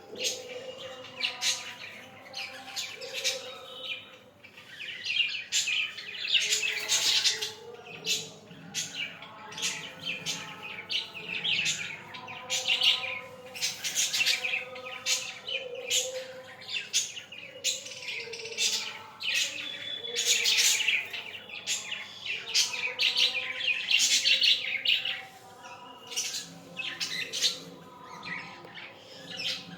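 Budgerigars chirping and warbling in quick, continuous chatter, with louder busy stretches several times.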